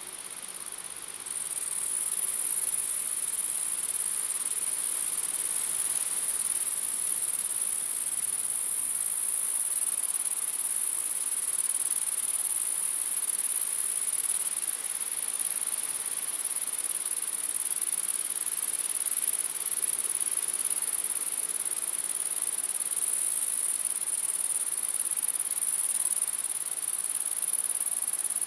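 A dense, steady, high-pitched chorus of crickets chirring at night, which gets a little louder about a second in.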